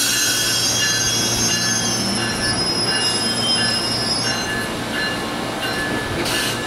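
Amtrak Amfleet passenger cars rolling slowly past a station platform, their steel wheels squealing with several high-pitched tones over the rumble of the train.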